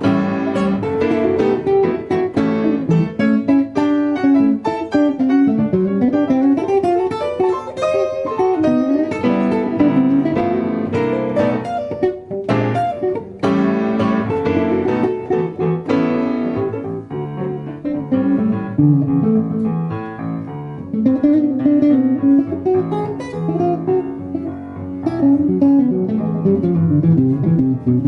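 Acoustic guitar playing an instrumental blues in quick plucked notes. About halfway through, the high notes thin out.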